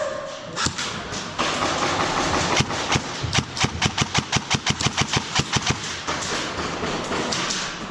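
Airsoft gun firing on full auto: a rapid, even run of shots, about nine a second, lasting some three seconds in the middle.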